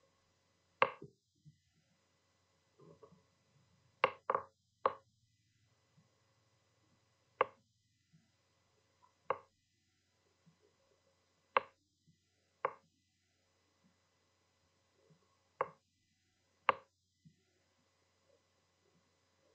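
Sharp single knocks, about ten of them at irregular gaps of one to three seconds, each short and dry.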